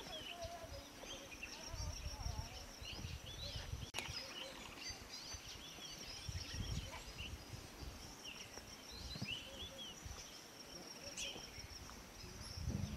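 Birds chirping in short, scattered calls over a faint steady high-pitched drone, with an uneven low rumble of wind on the microphone.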